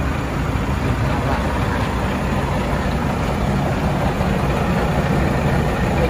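Semi truck's diesel engine idling steadily, a low, even rumble.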